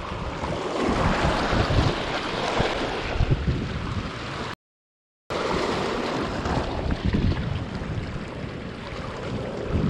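Wind buffeting the microphone over small waves washing across shallow reef rocks. The sound drops out completely for under a second about halfway through.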